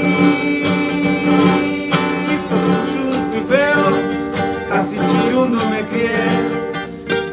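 Music led by plucked acoustic guitar, with a melody line that bends in pitch over it.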